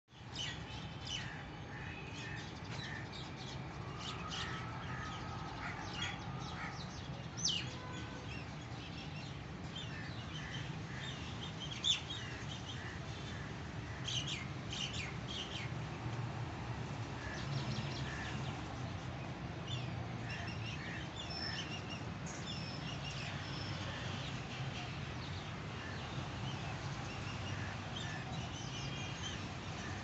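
Small birds chirping and tweeting in many short high calls, scattered irregularly, over a steady low background hum; a brief sharp knock about twelve seconds in.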